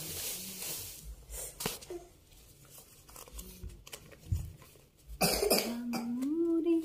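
A person coughs sharply about five seconds in, then a cat gives one long meow that rises and falls in pitch. Before that, a few light knocks and rustles.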